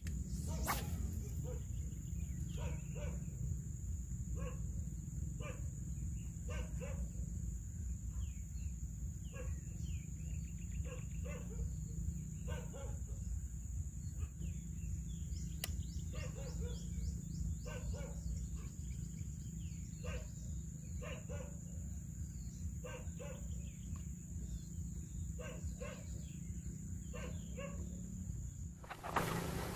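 Outdoor riverside ambience: a steady low background with a thin, high, steady tone, and many short, irregular animal-like calls or clicks scattered throughout. About halfway through comes a sharp tick followed by a quick run of smaller ticks.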